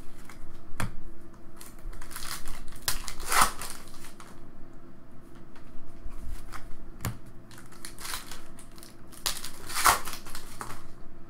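Trading cards being flipped through by hand: irregular swishes of cards sliding across one another, with a few sharp taps, loudest about two to three seconds in and again near the end.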